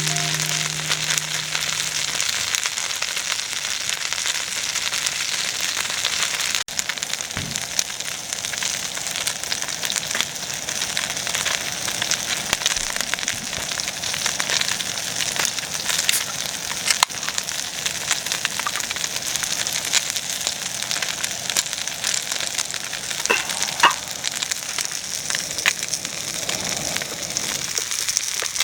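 Food sizzling steadily on a hot iron griddle, with occasional sharp pops.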